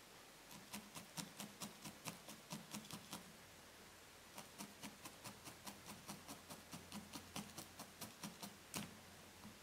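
Quiet, rapid clicking taps of a multi-needle felting tool stabbing a small tuft of pink wool on a burlap mat, about four stabs a second. The tapping pauses for about a second partway through, then resumes.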